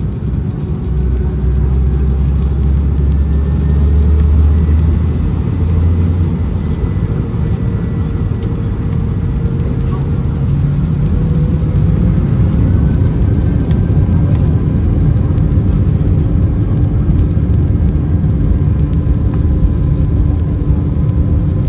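Airbus A319-131's IAE V2500 jet engines running at high thrust for takeoff, heard from inside the passenger cabin as a loud steady roar with faint whining tones that rise slowly in pitch. A heavy low rumble in the first few seconds fades about six seconds in.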